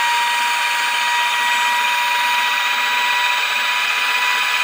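LG front-loader direct-drive washing-machine motor spinning a generator rig through a 6.2:1 step-up multiplier drive, running with a steady whine over a whirring noise. The noise comes from the multiplier drive.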